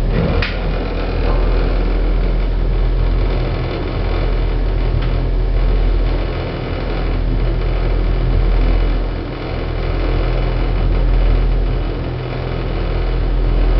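Passenger lift car travelling between floors: a steady low rumble and hum of the running lift that swells and fades slowly, with a brief knock about half a second in.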